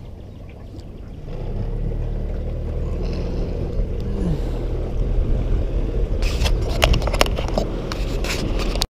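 Small fishing boat's motor running steadily under way, getting louder about a second in, with a run of sharp clicks and knocks over the last few seconds before the sound cuts off suddenly.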